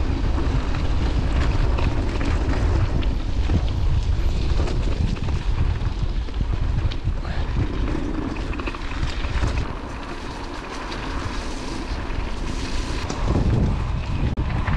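Wind buffeting the microphone of a camera on a moving mountain bike, with the rumble and clatter of the bike rolling over a rough trail. It eases off for a few seconds about two-thirds of the way through.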